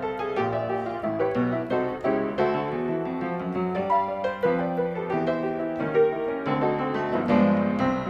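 Background piano music: a steady run of quick notes and chords.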